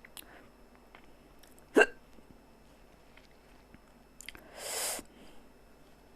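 A woman's single sharp hiccup about two seconds in, brought on by eating very spicy noodles, followed near the five-second mark by a short hissing breath.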